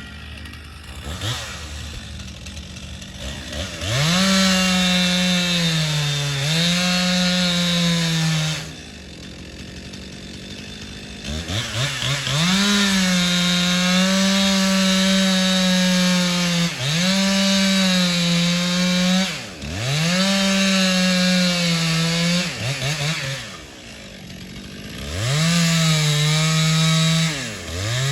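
Two-stroke chainsaw throttled up to full speed and cutting wood in repeated runs of a few seconds each, the engine note sagging slightly under load, falling back to idle between cuts. There are a couple of quick throttle blips just past the middle.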